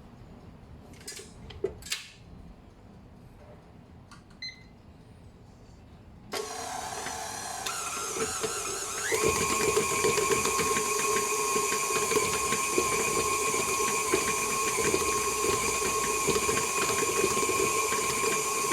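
Electric stand mixer kneading bread dough: its motor starts about six seconds in at a low speed, then steps up to a higher, steady running hum about three seconds later. A few light clicks and a short beep come before it starts.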